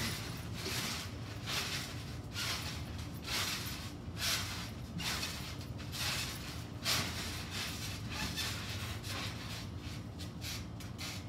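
Trampoline being bounced on, its mat and springs giving a short swishing creak roughly once a second, over a steady low hum.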